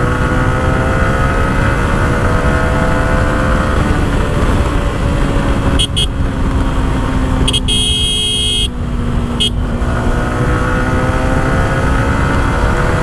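Yamaha R15 V4's single-cylinder engine running at cruising speed on the highway, with wind rush. About six seconds in a horn beeps twice briefly, then gives a longer toot of about a second, and one more short beep follows.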